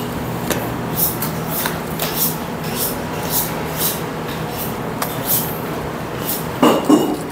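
Boning knife scraping and slicing along pork bone and meat, in short strokes about every half second, over a steady low hum. A brief louder noise comes near the end.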